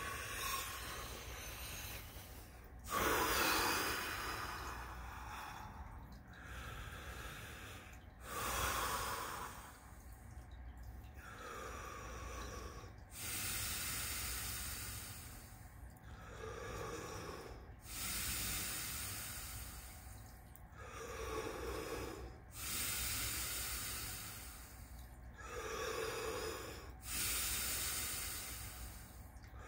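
A man's deep, rhythmic breathing: full breaths in and out, one every four to five seconds, as Wim Hof method power breaths.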